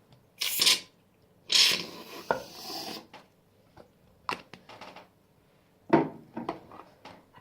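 Two scraping, rubbing noises, a short one about half a second in and a longer one lasting over a second, followed by a few short taps and knocks.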